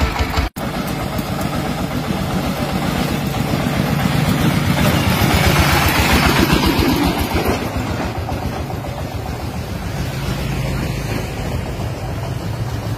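Dompeng-type single-cylinder diesel engine running with a fast, even chugging. It cuts out for an instant about half a second in, swells louder for a few seconds in the middle, then settles back to a steady run.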